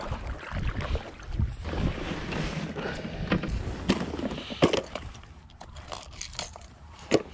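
Kayak paddle strokes swishing and splashing in the water, then sharp plastic clicks and knocks from a clear plastic tackle box being opened and handled, the loudest snaps around the middle and just before the end.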